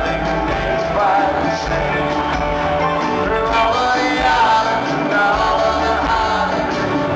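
Music with a singing voice over a full band, continuous and steady in loudness.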